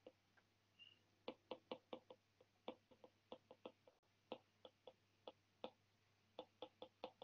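Faint stylus taps and clicks on a pen tablet while handwriting, coming in quick irregular clusters of several a second.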